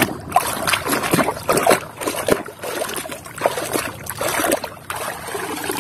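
River water splashing and sloshing in quick, irregular strokes as a muddy toy bus is swished back and forth through it by hand to wash it.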